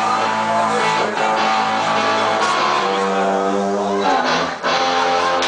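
Live rock band playing, led by an electric guitar holding long notes over a bass line. The sound dips briefly about four and a half seconds in.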